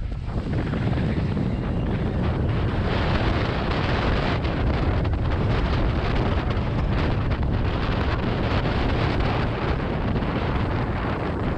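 A toboggan's runners scraping and clattering over packed snow on a downhill run, with wind buffeting the camera's microphone.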